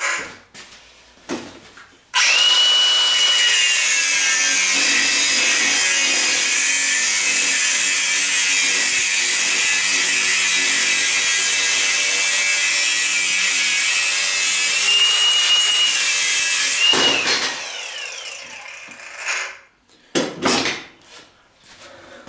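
Angle grinder with a cutting disc cutting through a steel frame tube. It spins up about two seconds in with a high whine, runs steadily under load for about fifteen seconds, whines free again briefly, then winds down, and a few knocks follow near the end.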